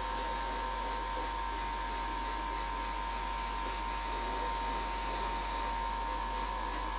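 Airbrush spraying paint: a steady hiss of air with a steady whine underneath.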